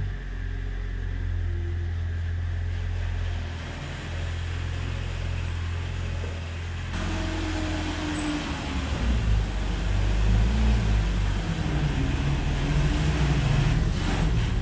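Engine of an articulated off-road machine running as it drives up and reverses close by. It grows louder over the second half.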